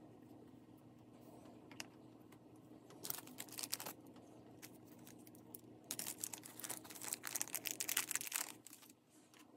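Crinkling and small rapid clicks as small craft embellishments and their clear plastic packaging are handled, in two bursts: about three seconds in, and again from about six seconds to eight and a half.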